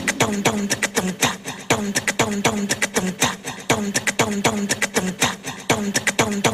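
A fast, even percussion beat of sharp clicking hits, many followed by a short drum tone that drops in pitch, with no melody over it.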